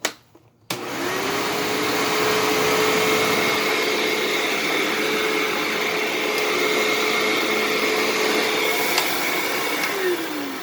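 Hoover WindTunnel Self-Propelled upright vacuum (2004 series) switched on with a click, its motor spinning up and then running steadily at full speed. Near the end it is switched off and winds down with a falling pitch.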